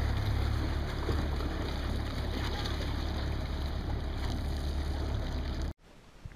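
Steady low rumble of a motorboat engine idling close by, with water splashing and lapping; it cuts off suddenly near the end.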